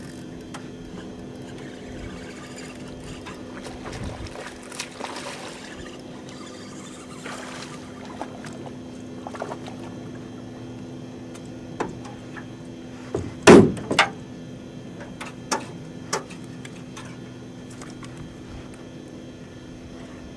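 Angler playing a hooked bass from a boat: a steady low hum runs under a couple of rushing, splashy noises, then a cluster of sharp knocks on the boat. The loudest knock comes a little past the middle.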